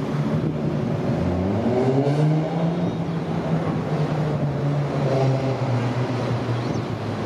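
R179 subway train accelerating out of the station on elevated track. Its propulsion whine rises in pitch about a second in, then levels off over the rumble of the wheels on the rails.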